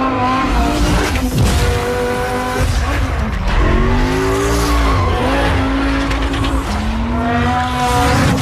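Car sounds: an engine revving and tyres squealing, the pitch gliding up and falling back, over a heavy low rumble with a couple of sharp knocks.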